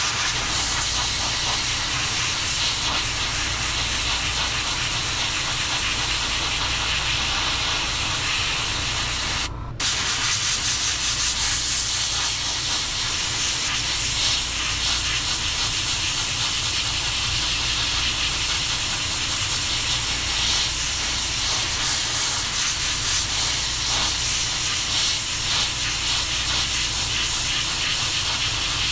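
Gravity-feed airbrush spraying paint onto a crankbait lure: a steady hiss of air, broken very briefly about ten seconds in, over a low steady hum.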